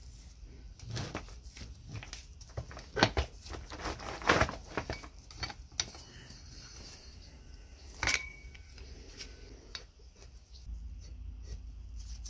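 Irregular metal clinks, taps and scrapes from a screw puller being fitted to and worked on the pulley wheel of a chain hoist. Most of the knocks fall in the first half, the loudest around three to four and a half seconds in, with one more sharp clink about eight seconds in.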